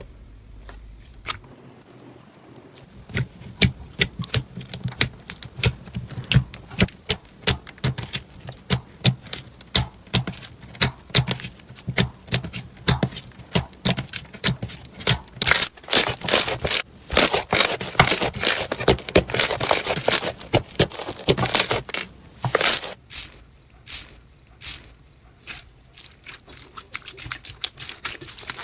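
Slime being squeezed and poked, giving a quick run of small clicks and pops. The pops come thickest a little past halfway, then thin out near the end.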